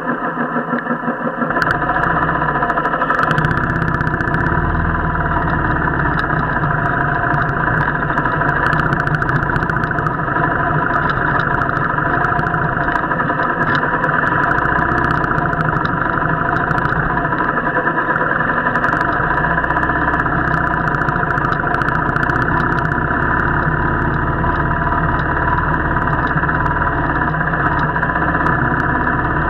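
Motorcycle engine running steadily while riding, sounding muffled with little high end.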